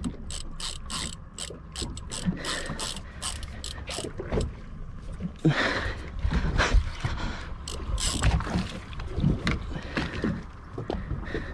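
Fishing reel working against a hooked fish: a rapid, irregular run of mechanical clicks and gear ratcheting, with occasional low knocks.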